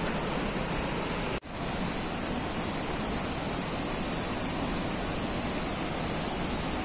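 Changey Falls in heavy monsoon flow: a steady, even rush of falling water, with one very brief dropout about a second and a half in.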